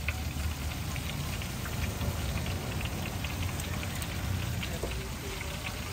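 Battered banana fritters deep-frying in a large wok of hot oil: a steady sizzle with dense crackling and popping.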